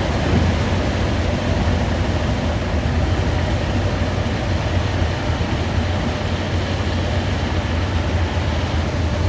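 Cabin noise aboard a Paris Métro MP 73 rubber-tyred train in motion: a steady low hum under an even rolling rumble.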